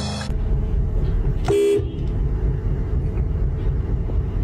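A steady low rumble like a running vehicle, with one short horn toot about a second and a half in.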